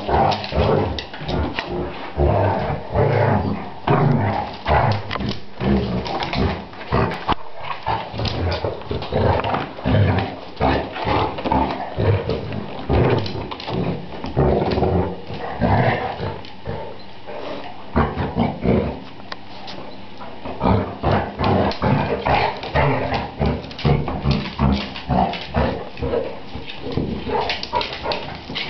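Two basset hounds play-fighting: many short, irregular dog vocalisations mixed with scuffling, with no pause longer than a moment.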